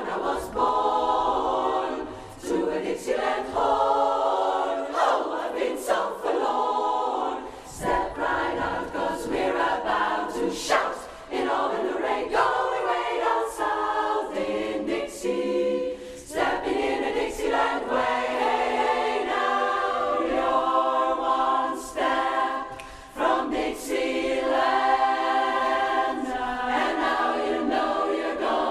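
Women's barbershop chorus singing a cappella in close harmony, in lively phrases with brief breaks between them.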